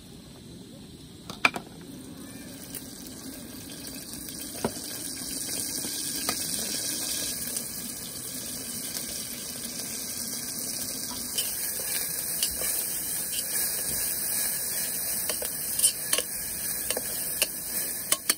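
Food cooking on a camp stove: a steady hiss that builds over the first several seconds and then holds, with a few sharp clinks of cookware, the loudest just over a second in.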